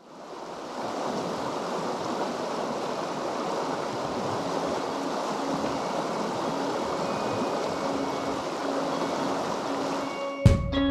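Steady rush of a mountain trout creek's flowing water, fading in over the first second. Guitar music starts about half a second before the end.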